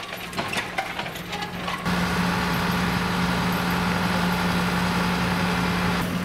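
Heavy machinery's diesel engine idling steadily, with scattered clanks and knocks over the first two seconds; about two seconds in the hum becomes louder and even.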